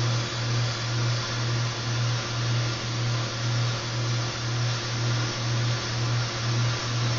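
Gas soldering torch burning steadily, a continuous hiss with a low hum under it, heating a borax-fluxed silver piece for silver soldering.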